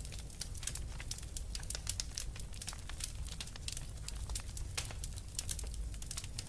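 Wood fire crackling, with many quick, irregular sharp pops and snaps over a low, steady rumble.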